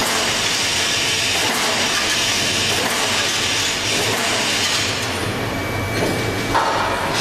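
Running CNC beam-punching line for lorry chassis beams, heard as a steady, loud mechanical din, with a brief thin whine about five seconds in.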